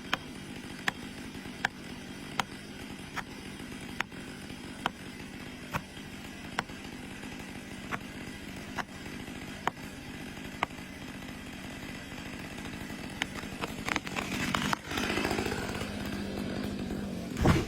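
Large timber band saw (wheel saw) running with a steady hum and a sharp tick repeating about every 0.8 s. The sound grows louder and rougher about three-quarters of the way through, as the blade cuts into the log. It ends with a loud thump.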